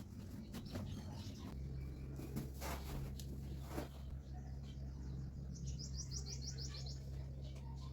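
A bird chirping: a quick run of high chirps about two-thirds of the way through, over a steady low hum that sets in early on, with a few short clicks before the chirps.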